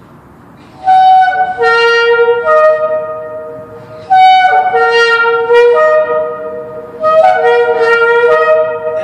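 Two Yemenite shofars blown together in three long blasts, each stepping between held notes with clear high overtones. They echo off the concrete of a parking structure.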